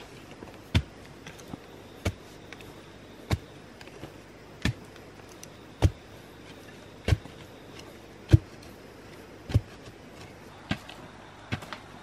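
Dull thuds of a wooden digging pole being jabbed into packed soil to dig out wild yam tubers, about one strike every second and a quarter in a steady rhythm, with faint crumbling ticks of loosened earth between.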